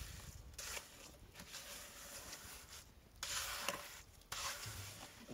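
Flat plastering trowel scraping and smoothing wet cement on a floor, in several separate strokes, the strongest a little past halfway.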